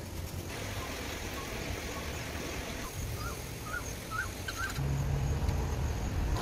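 Outdoor background with a low rumble and hiss. A few short bird chirps come in the middle, and a low steady hum joins about five seconds in.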